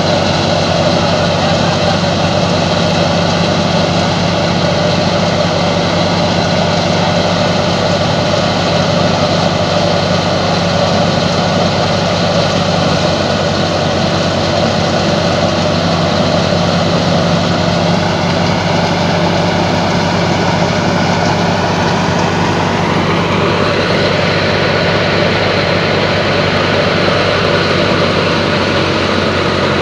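Old Fiat 480 tractor's diesel engine running steadily under load while it drives a wheat thresher, mixed with the thresher's continuous mechanical drone. Some whining tones slide up in pitch about two-thirds of the way through.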